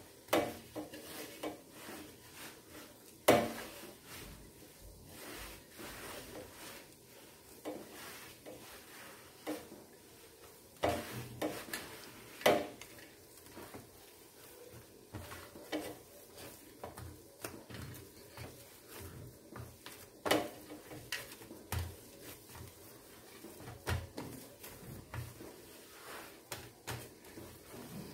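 Hand kneading a crumbly pearl-millet and fenugreek dough with curd in a stainless steel plate: irregular knocks and scrapes of hand and dough against the steel, with soft squelching of the dough. A few sharper knocks stand out, about three seconds in and again around eleven, twelve and twenty seconds in.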